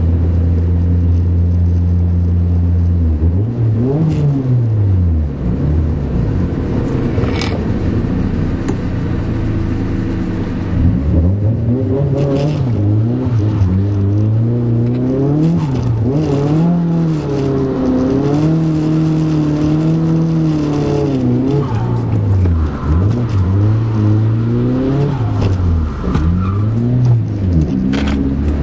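Car engine heard from inside the cabin, holding a steady drone for the first few seconds, then revving up and dropping back over and over as the car is driven hard through corners.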